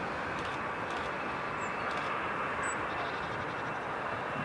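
Airbus A320's twin jet engines running at takeoff thrust during the takeoff roll, heard from beside the runway as a steady, even rushing noise. A faint high whine joins in about three seconds in.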